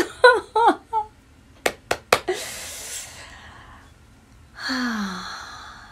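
A woman's voice trailing off, then a few sharp clicks and a long breathy exhale, followed by a sigh that falls in pitch.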